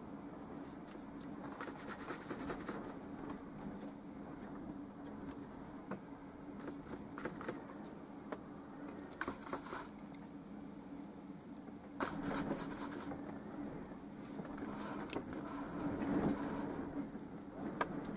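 Paintbrush working oil paint on the palette and canvas: several short scratchy strokes of about half a second to a second each, over a steady low hum.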